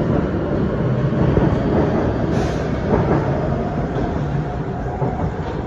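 SMRT C151A metro train (Kawasaki & CSR Sifang) pulling out of the station and passing close by: a steady rumble of wheels on the rails with a tone running under it and a few short clicks. It eases off slightly near the end as the cars move away.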